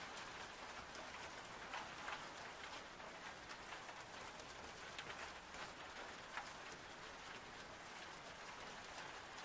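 Faint, steady rain: an even hiss with scattered light drop taps.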